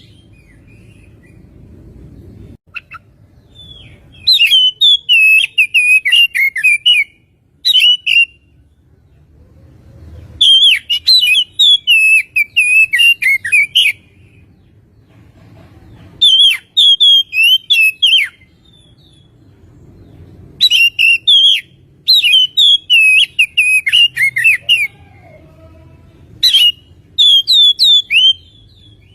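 Oriental magpie-robin (kacer) singing in loud bouts of rapid, varied whistled and chattering notes, each bout lasting one to four seconds, with short pauses between them.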